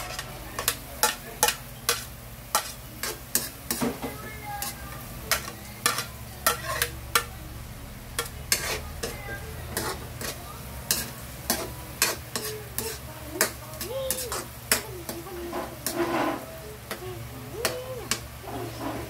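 A metal spatula clinking and scraping against a metal wok, struck repeatedly at an irregular pace, while chopped vegetables are stirred and sautéed with a light sizzle.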